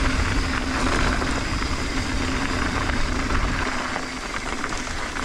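Mountain bike rolling fast downhill on a hard-packed dirt fire road: tyres on the dirt and wind over the microphone make a steady rumbling noise, with a faint hum that fades about four seconds in.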